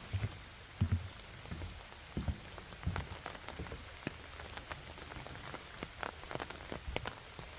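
Rain falling, with a steady soft hiss and many irregular, sharp drops striking close by, a few of them heavier dull thuds.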